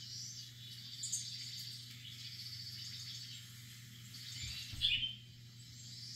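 Birdsong playing through a TV's speakers: repeated high chirps and trills over a faint steady hum, with one louder call about five seconds in.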